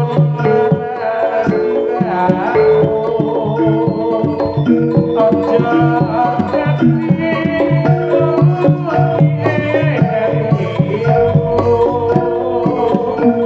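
Amplified Javanese jaranan music: kendang hand-drum patterns over ringing gamelan metallophones, playing on without a break.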